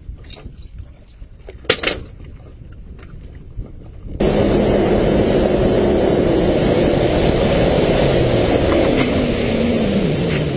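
Outboard motor running the boat fast, starting suddenly about four seconds in, with water rushing past the hull; the engine note dips a little near the end. Before it, quieter boat sounds with one sharp knock a couple of seconds in.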